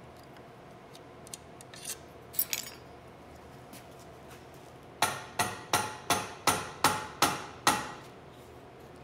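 A few light clicks, then a run of about eight sharp, evenly spaced taps with a short ring to each, about three a second, as the barrel is worked out of a flintlock longrifle's stock.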